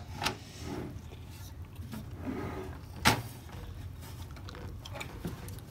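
A motherboard being slid and aligned inside a steel PC case: faint scraping and handling noise with a few clicks of board and metal. The sharpest knock comes about three seconds in.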